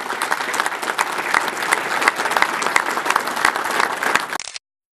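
A crowd applauding, dense rapid hand-claps. It fades sharply and cuts off to silence just before the end.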